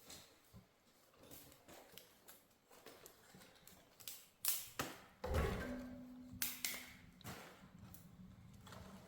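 Scattered knocks, taps and clatter of firewood and metal being handled at a wood stove while a fire is being laid and started. The two heaviest thuds come about halfway through, followed by a brief steady low hum.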